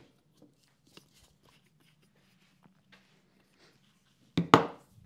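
Light taps and handling noise over a faint steady low hum, then a sharp double knock near the end as a glue bottle and an aerosol can are set down on a hard surface.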